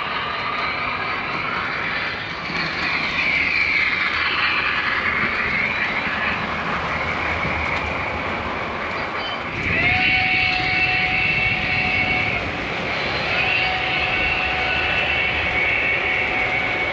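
O gauge model freight cars rolling past on the track with a steady running rumble. About ten seconds in, a model locomotive's electronic steam whistle sounds a long chord, and it blows a second long blast a moment later.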